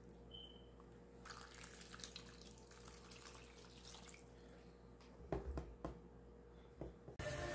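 Water poured in a stream into a pan of raw potato chunks, grape tomatoes and chermoula sauce, splashing and trickling for about three seconds. A few sharp knocks follow, and music starts just before the end.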